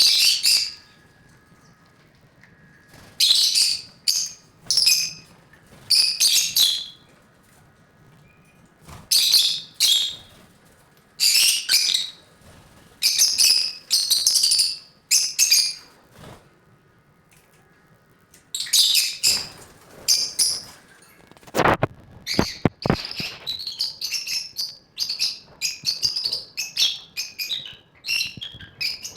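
Lovebirds chirping in shrill bouts of about a second with short pauses between, turning into near-continuous rapid chatter near the end. A few sharp knocks come a little past the middle.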